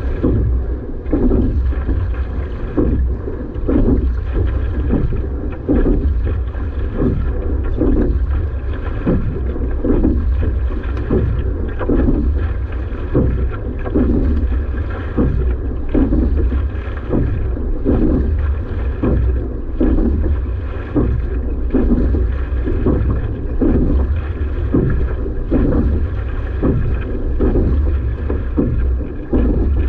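Rowing at a hard, steady pace, with a rhythmic surge of sound on each stroke about every two seconds over a continuous low rumble.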